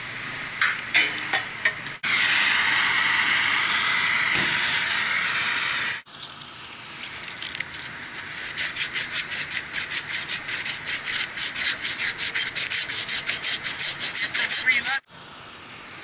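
Brisk back-and-forth scrubbing of a cooling-tower part by hand, about four to five strokes a second, ending suddenly. Before it comes a few seconds of steady hiss that starts and stops abruptly.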